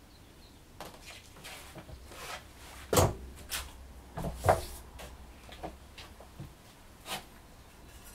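Handling noises from working on the exhaust: several sharp clunks and knocks, the loudest about three and four and a half seconds in, with rustling between.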